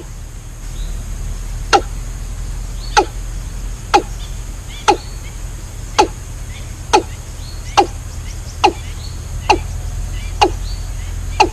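Repeated sharp strikes, about one a second, each a short knock that drops quickly in pitch, over a steady low hum.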